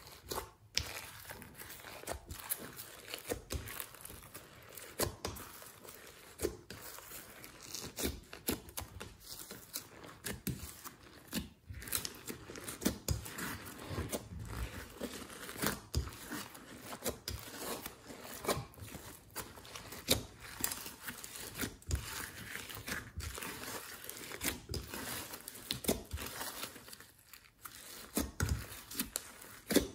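Glossy slime being squeezed, stretched and folded by hand with clay, foam beads and glitter mixed in: sticky, crinkly tearing sounds with irregular small crackles and clicks throughout.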